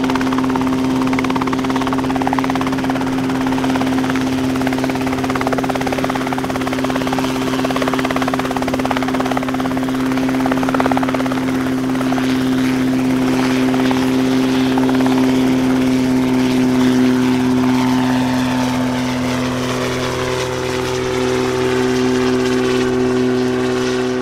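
RotorWay A600 Talon kit helicopter hovering low over the ground: a loud, steady engine-and-rotor drone with a constant pitched hum, whose pitch shifts slightly about twenty seconds in.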